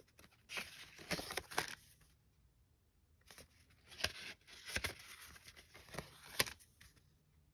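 Die-cut cardstock pieces being handled and flipped over, with paper and clear plastic packaging rustling. There are a few soft rustles in the first two seconds, then several sharp crinkles and taps.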